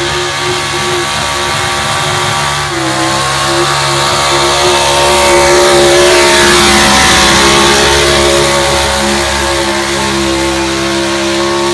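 Modified pulling pickup truck's engine held at high, steady revs at full throttle under load as it drags a weight-transfer sled, with a brief dip in pitch about three seconds in.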